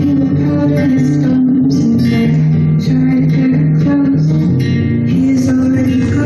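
A recorded song playing as background music.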